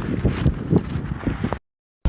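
Wind buffeting the microphone, a low rumbling noise with a few dull knocks, cut off abruptly near the end by an edit.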